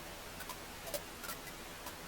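Wood fire crackling: irregular sharp pops and snaps over a steady hiss, with the loudest pop about a second in.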